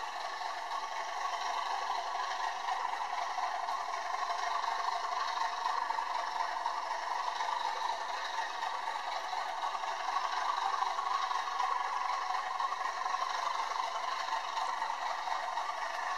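Model train rolling past on its track: a steady clattering rush of wheels on rails that swells a little mid-way.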